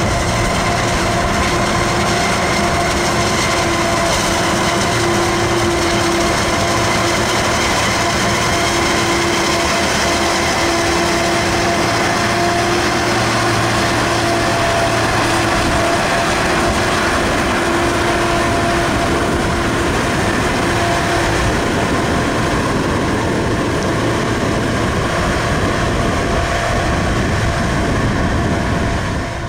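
Self-propelled forage harvester chopping maize: engine and chopping gear running steadily under load, with a constant whine over the heavy machine noise.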